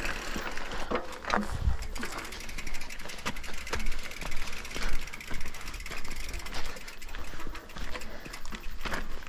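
Mountain bike riding down a rough dirt trail: the bike rattles and knocks irregularly over the bumps, over tyre noise and a low wind rumble on a helmet-mounted action camera.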